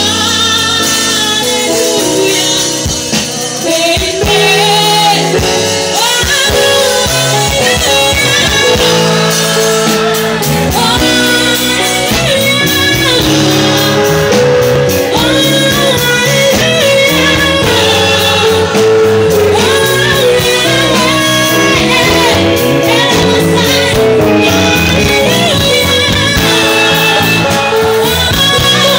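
Live gospel praise band playing loudly through a PA, with a woman singing the lead melody into a microphone over drums, keyboard and guitar.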